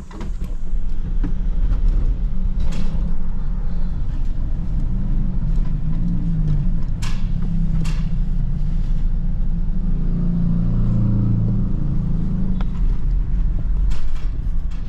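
A car driving, heard from inside the cabin: a steady low engine and road rumble, with a few sharp clicks.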